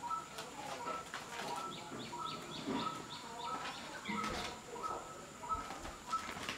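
Birds chirping: a short note repeated about three times a second, with a run of quick rising chirps from about two to three and a half seconds in. Faint rustles and taps from the kittens scuffling on a plastic sack.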